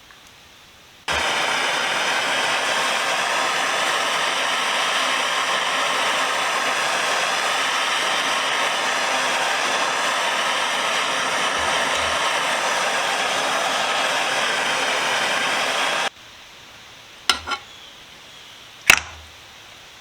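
A loud, steady rushing noise of blown air, like a hair dryer or heat gun running, starts abruptly about a second in and cuts off about sixteen seconds in. Two sharp knocks follow near the end, the second one louder.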